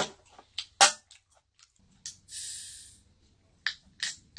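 Aluminium can of Filite Fresh being cracked open, with a short fizzing hiss about two seconds in, amid several sharp clicks and knocks of cans being handled.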